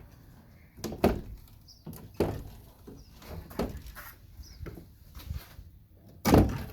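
Wooden beehive frames knocking and scraping against the hive box as they are pulled out and handled: a string of separate knocks, the loudest and longest near the end.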